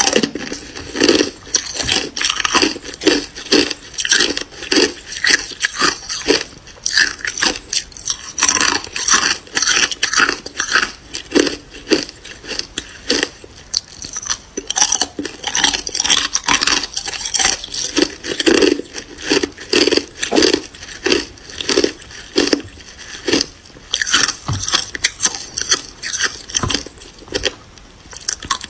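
Hard clear ice being bitten and chewed: a fast, continuous run of sharp crunches and cracks.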